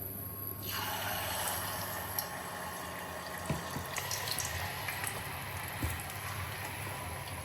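Steady rush of running or falling water that starts suddenly about a second in, with a few light drips and ticks on top.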